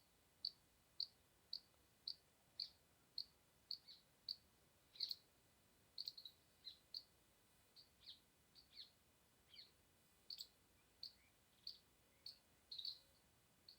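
A small bird chirping: short, faint, high chirps about two a second, growing more irregular after about six seconds, with a few notes that drop in pitch.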